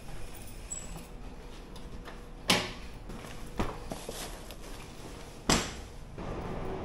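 Lid of a food delivery box on the back of a bicycle flipped open with a sharp knock, some handling inside, then slammed shut with a second knock about three seconds later.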